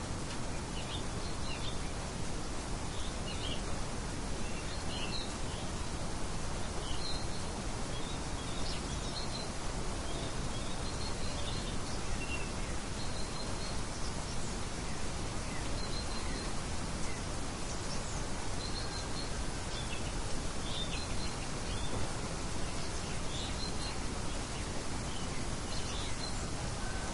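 A steady, soft hiss of light wind, with small birds chirping in short calls scattered throughout.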